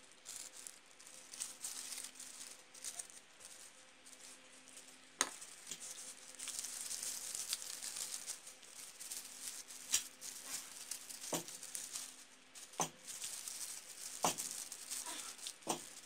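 Tissue paper rustling and crinkling as hands squeeze and crumple the bases of paper-rose petals. There are several sharp crackles along the way, the first about five seconds in.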